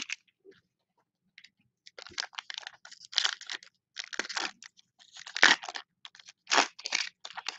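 Shiny foil wrapper of a Panini Mosaic trading-card pack crinkling and tearing as it is ripped open by hand, in irregular crackling bursts that start about two seconds in, loudest near the end.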